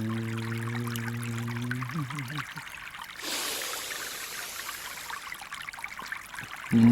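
A steady, low humming tone stops about two seconds in with a brief wavering fall. About a second later a breath-like whoosh of hiss lasts about two seconds, and the hum starts again, louder, near the end. Flowing water trickles faintly underneath.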